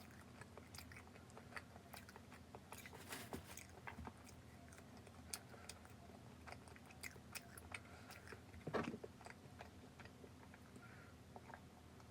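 Faint close-up chewing and biting of soft cream-filled bread, with small wet mouth clicks and a slightly louder bite about nine seconds in.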